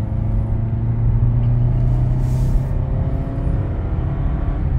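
2023 Toyota Camry XSE on the move, heard from inside: the four-cylinder engine's note climbs slowly as the car gathers speed, over steady road and tyre noise.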